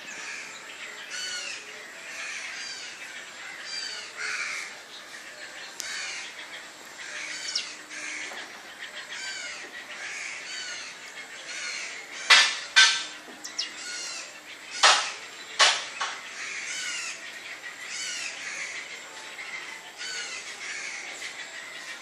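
Birds calling: a steady run of short, arching chirps about twice a second, with four loud, harsh calls about halfway through.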